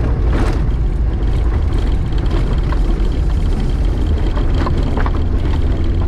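VAZ 2105 rally car's inline four-cylinder engine running hard on a gravel stage, its pitch dropping as the driver lifts off at the start, then running steadily lower through a bend. Scattered clicks of gravel striking the car come through the engine noise.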